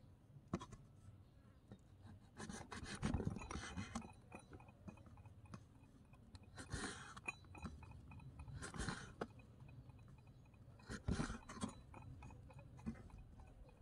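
Small kitchen knife cutting through raw octopus tentacles on a wooden cutting board, in several short bouts of wet scraping strokes with sharp clicks as the blade meets the wood.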